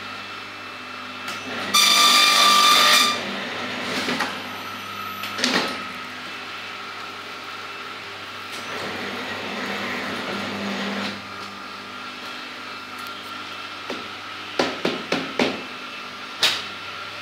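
Desktop perfect binding machine running with a steady hum. About two seconds in it gives a loud, harsh rasp lasting just over a second. Near the end comes a quick run of four sharp clacks, then one more.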